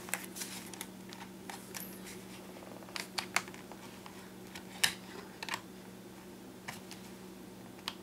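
Scattered light clicks and taps of hands handling the plastic shell of a DJI Phantom 2 Vision quadcopter, one sharper click a little under five seconds in, over a steady low electrical hum.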